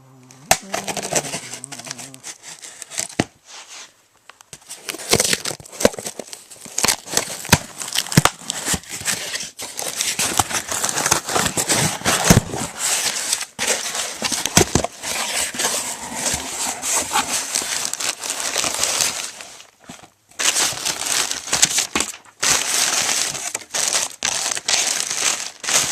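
A cardboard shipping box being opened by hand: tape tearing and plastic air-padding pillows crinkling and rustling in long stretches, with a couple of short pauses.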